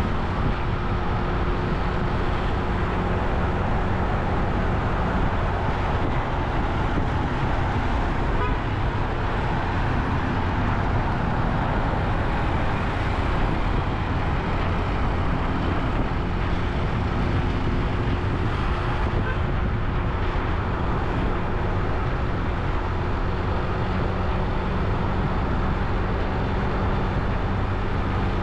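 Motorcycle riding through city traffic: steady engine and road noise, heavy in the low end, that hardly varies throughout.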